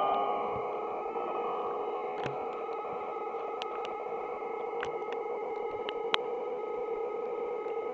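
Electronic noise-machine drone of several steady held tones, feedback-like, with scattered faint clicks; it eases down a little in loudness in the first second.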